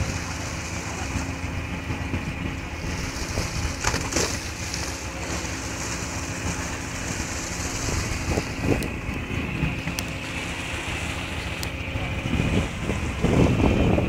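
A fishing boat's engine running steadily at sea, with wind on the microphone and a few light knocks from handling the line.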